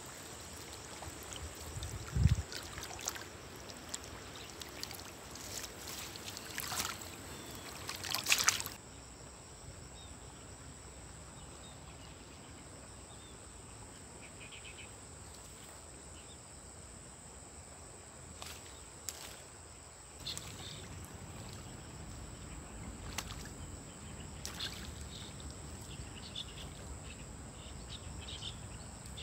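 Water splashing and dripping as a fish is worked out of a cast net by someone wading in a river, with one dull thump about two seconds in. After about nine seconds it settles to quieter river water with a few light splashes.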